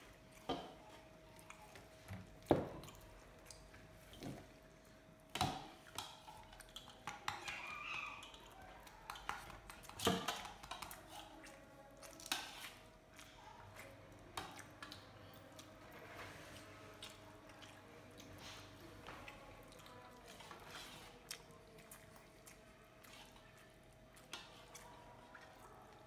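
Eating rice and curry by hand: fingers mixing and scraping soft rice on a plate, with chewing and a handful of sharp clicks and knocks. A faint steady hum runs underneath.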